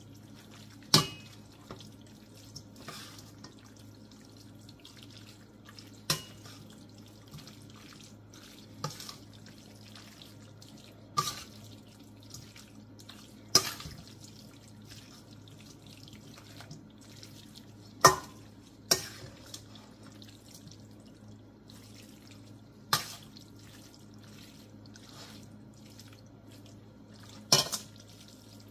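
Metal spoon clinking and scraping against a stainless steel pan as stir-fried cabbage and meats are stirred. It gives sharp clinks every few seconds at uneven spacing over a steady low hum.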